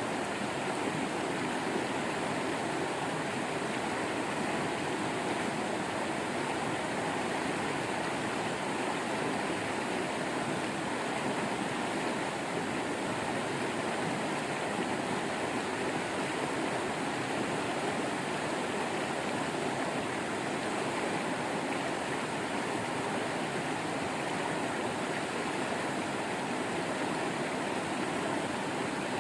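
Waterfall water running and splashing steadily in an even rush.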